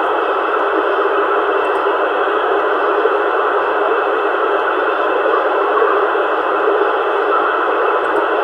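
Steady FM static hiss from a CB transceiver's speaker on the 27 MHz band: open-squelch receiver noise with no voice on the channel.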